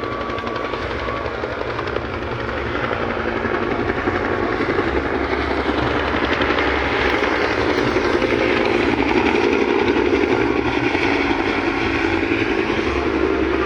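A steady engine drone that grows louder over the first several seconds and then holds.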